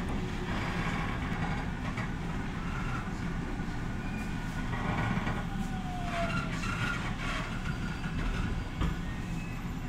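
Interior running noise of a JR Central 313 series electric train in motion: a steady rumble of the wheels on the rail, with a few faint whines over it.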